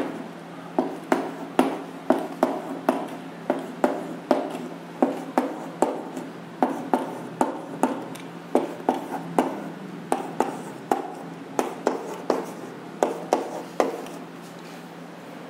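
Chalk on a blackboard, writing numbers and exponents: a steady run of sharp taps, about two a second, with a light scrape between them, stopping near the end.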